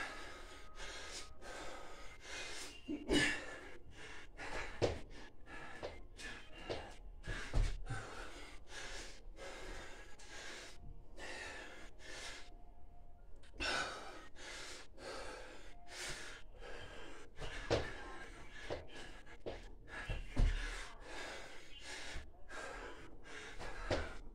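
A man gasping and breathing hard while doing Navy SEAL burpees, with a few heavy thuds as he drops or lands on the floor.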